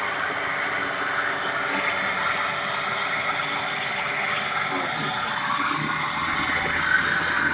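Bissell Lift-Off upright vacuum cleaner running steadily, a motor whine with rushing air, its motor starting to get hot after about two minutes of continuous running. About five seconds in, one tone in the sound dips in pitch and a low hum comes in.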